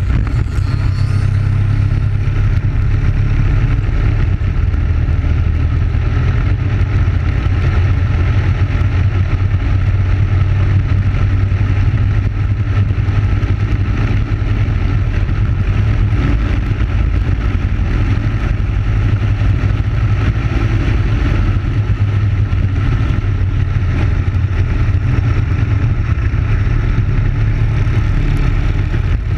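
Briggs & Stratton Animal single-cylinder four-stroke kart engine running flat out at racing speed, heard close up from an onboard camera, a steady drone with no breaks.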